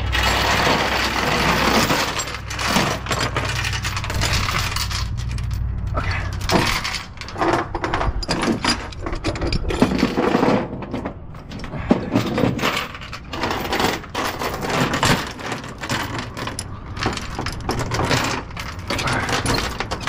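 Steel tie-down chain clinking and rattling as it is pulled through a backhoe's tie-down point and dragged over an aluminium trailer deck, with a chain binder handled; many short, irregular metal clacks.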